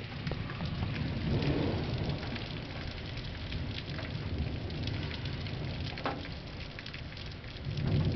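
Heavy thunderstorm rain: a steady hiss with many sharp ticks of individual drops, over a low rumble of thunder that swells about a second and a half in and again near the end.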